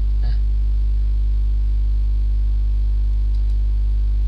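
Steady electrical mains hum with a stack of overtones in the recording, loud and unchanging, with a brief faint sound about a third of a second in.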